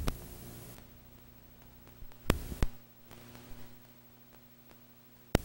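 Low steady electrical hum under faint hiss, broken by sharp clicks: one at the start, a pair about two seconds in, and two more near the end.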